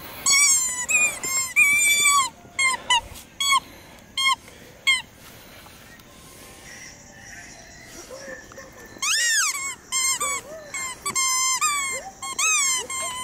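Red rubber squeaky toy squeaking over and over as a pit bull chews it: quick runs of short, high squeaks, a quieter stretch in the middle, then one longer, louder squeak about nine seconds in followed by more squeaks.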